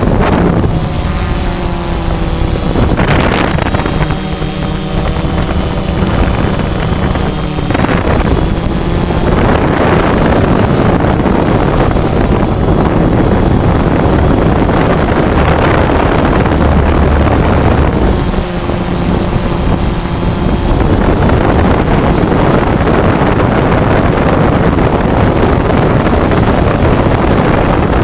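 Quadcopter drone's electric motors and propellers running in flight: a steady hum of several tones under a loud rush of wind on the onboard microphone.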